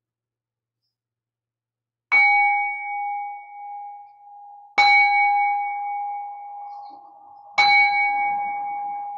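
Buddhist meditation bowl bell struck three times, about two and a half seconds apart, each strike ringing on a clear steady tone and fading slowly under the next.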